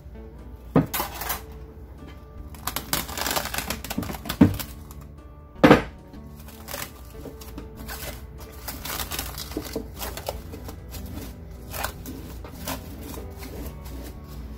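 Plastic cling film crinkling and crackling as it is stretched over a plate and pressed down around the rim by hand, with a few sharp clicks, over background music.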